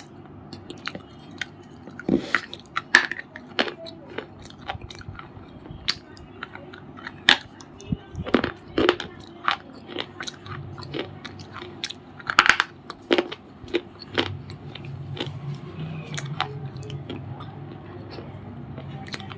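A crumbly white bar being bitten and chewed close to the microphone: a run of sharp, irregular crunches and cracks, with several much louder bites among them.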